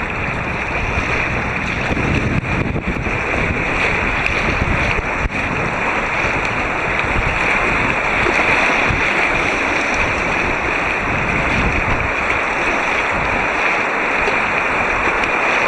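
Rushing white water of a river rapid, a steady loud wash of noise, dulled by the waterproof housing around the camera.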